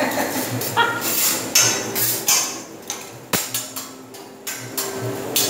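Metal spatula scraping and tapping on a steel teppanyaki griddle as fried rice is chopped and pushed about, in a run of irregular strokes with a sharp click about three seconds in.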